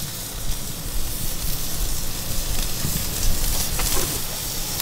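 Thick porterhouse steak searing on a kamado grill's grate directly over a hot, flaming charcoal fire: a steady sizzle and hiss of the meat and fat over the coals.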